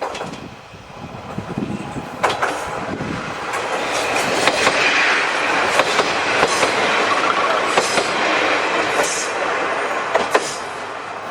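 Two-car KiHa 28 + KiHa 52 diesel railcar set passing close by. Its wheels clack over the rail joints in scattered sharp knocks over a steady rumble of running noise. The sound grows louder about four seconds in and eases near the end.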